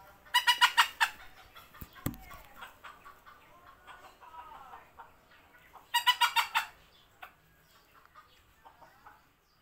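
Chicken clucking: two bursts of loud, rapid calls, one about a second in and one about six seconds in, with fainter scattered clucks between.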